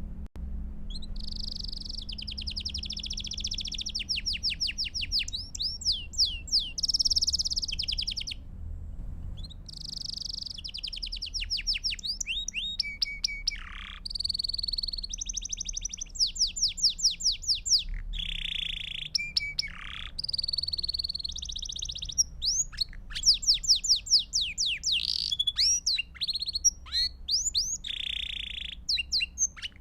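Belgian canary singing a long song of rapid trills and held, rolling phrases, with short pauses between phrases, over a faint low hum.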